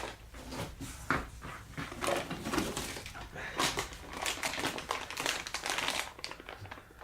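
Packaging being handled while unboxing machine parts: irregular crinkling and rustling with scattered light knocks and clicks.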